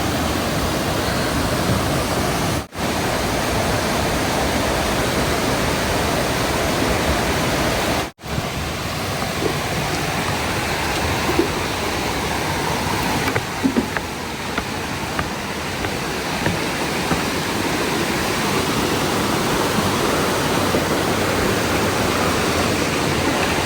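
Steady rush of a waterfall's falling water. It drops out briefly twice, and a few faint ticks sound about halfway through.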